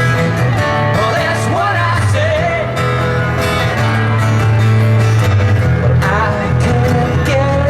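Country or bluegrass-style band music: plucked guitar over a steady bass, with a singing voice carrying a wavering melody.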